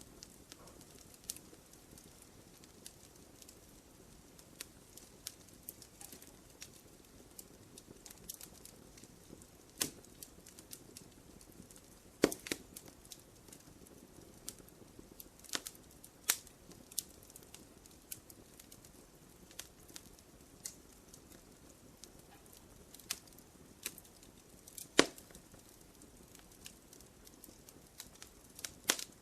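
Wood fire crackling in a fireplace: irregular sharp pops and snaps over a low steady hiss, with a few louder pops.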